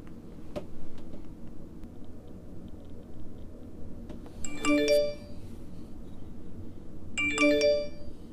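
Ring video doorbell's electronic chime tones during Wi-Fi setup: two short multi-note jingles, the second about two and a half seconds after the first.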